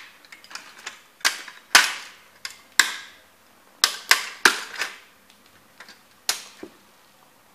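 Vintage plastic kit model car cracking and snapping as work boots crush it: about a dozen sharp, irregular cracks. The loudest come in a cluster from about one to five seconds in, with one more strong crack a little past six seconds.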